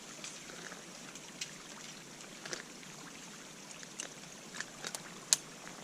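Meltwater trickling at a thawing frozen waterfall, a steady faint wash with a few sharp ticks scattered through it, the loudest near the end.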